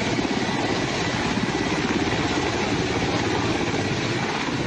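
Helicopter rotor chopping rapidly and steadily, as from a hovering rescue helicopter.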